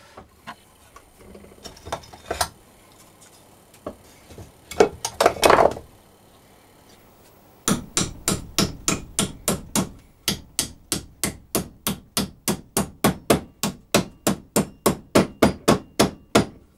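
Hammer knocking a nail into the wooden side piece of a Dadant beehive frame that rests on a vise. A few scattered knocks of the wood being handled come first. Then, from about eight seconds in, a fast, even run of hammer taps follows, about four a second.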